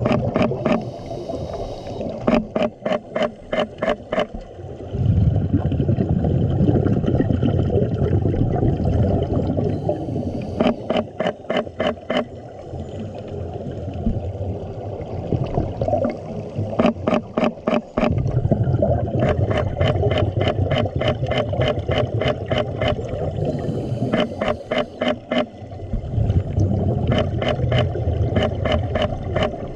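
Scuba diver breathing through a regulator underwater, heard from close by. Trains of rapid clicking alternate with long, low bubbling rumbles of exhaled air, repeating every several seconds.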